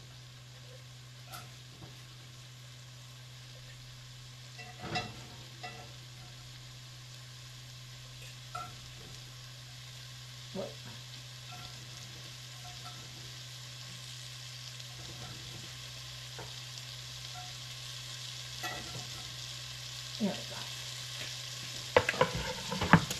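Pot barley and onion toasting in olive oil: a steady frying sizzle that grows slowly louder, over a low steady hum. A few soft knocks and clicks come from charred roasted tomatoes being handled in a pan, more of them near the end.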